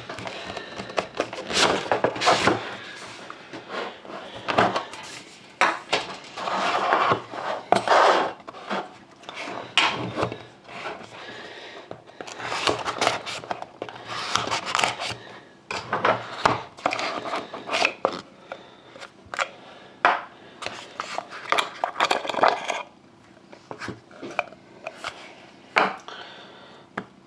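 A knife cutting through the seal of a cardboard trading-card box, with hands handling the box and packaging: irregular scrapes, rustles and knocks. It dies down for the last few seconds.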